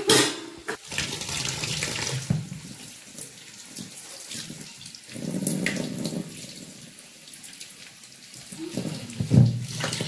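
Water running from a tap into a kitchen sink, the splashing rising and falling in strength, with a sharp knock near the end.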